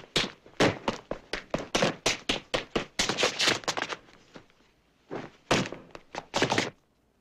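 Foley props struck by hand for an action scene: a dense, quick run of thuds and knocks for about four seconds, a short lull, then a few more hits before it stops.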